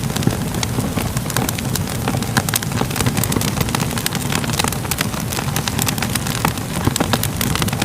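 A fire crackling: many quick sharp pops and snaps over a steady low rumble.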